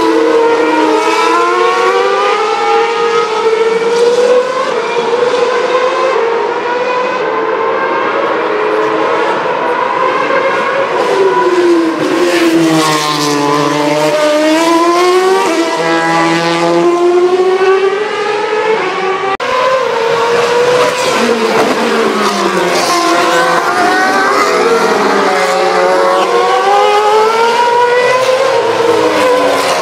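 2012 Formula 1 cars' 2.4-litre V8 engines passing one after another, several at once. Each engine's pitch drops as the car brakes and downshifts into the corner, then climbs gear by gear as it accelerates away. Rough crackling comes from the blown exhausts off the throttle.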